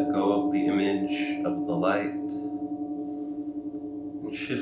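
A hand-held gong ringing on after a mallet strike: a steady low hum with several higher overtones, slowly fading.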